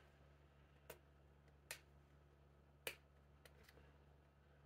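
Near silence broken by a few faint, sharp clicks: three spaced about a second apart, then two weaker ones close together near the end.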